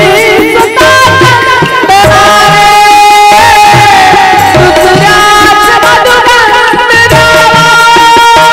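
Marathi devotional bhajan music: tabla drumming a steady rhythm beneath a melody of long held notes.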